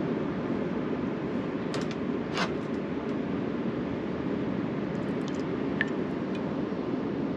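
Steady rush of ocean surf, even and unbroken. A couple of small clicks come about two seconds in, and a few more later on.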